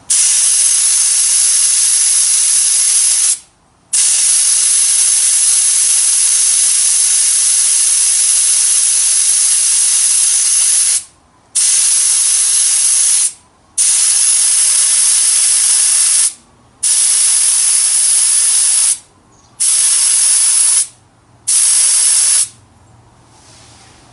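Air rushing out of an off-road trailer tyre through a trail deflator with the valve core removed: a loud, steady hiss as the tyre is let down from 34 toward 20 PSI. It stops suddenly six times for about half a second each and stops for good near the end.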